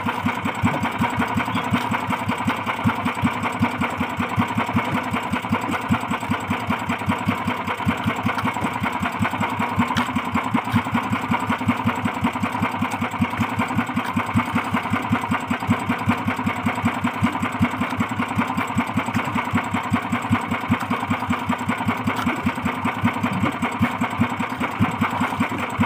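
Small boat engine running steadily at idle with a fast, even pulse.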